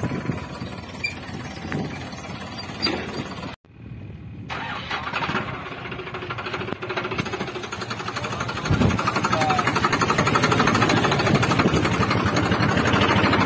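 Farmtrac tractor's diesel engine running, cut off briefly about three and a half seconds in, then louder and steady from a low thump about nine seconds in.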